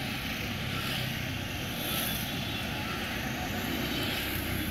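Steady street traffic noise from passing vehicles, with voices of people talking mixed in.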